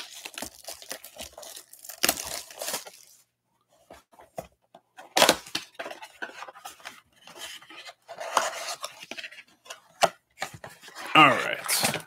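Plastic shrink-wrap being torn off a Panini Select UFC blaster box and the cardboard box opened: irregular crinkling and tearing rustles, with a short pause about three and a half seconds in.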